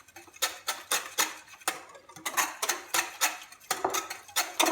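Cake batter being stirred by hand in a mixing bowl: a utensil knocking against the bowl in a steady rhythm of about three or four taps a second.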